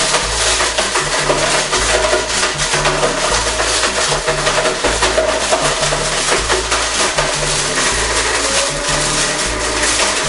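Background music with a driving drum beat and a bass line that changes note every second or two.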